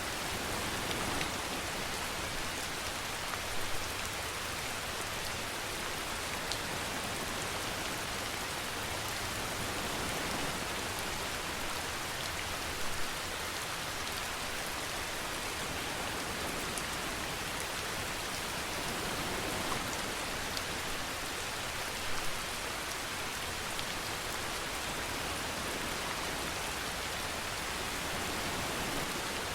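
Steady rain falling, an even hiss of many drops, with a few louder single drops standing out now and then.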